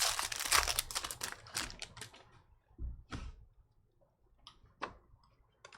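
Trading cards being flipped and slid through by hand, making a quick run of crisp, papery clicks for the first two seconds, then one more scrape and a few scattered single clicks.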